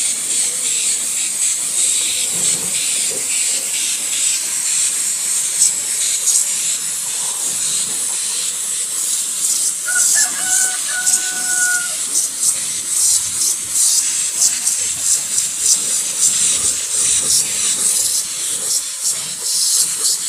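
Gravity-feed compressed-air spray gun hissing steadily as it sprays clear coat. A rooster crows once, about halfway through, for about two seconds.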